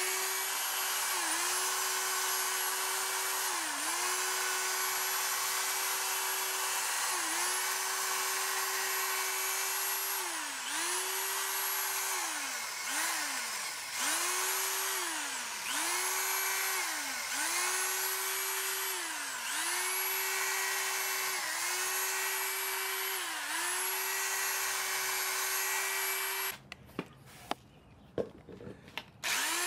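Power drill spinning a sanding pad against a plastic headlight lens: a steady motor whine whose pitch sags and recovers every couple of seconds. Near the end it stops for about three seconds, with a few clicks, then starts again.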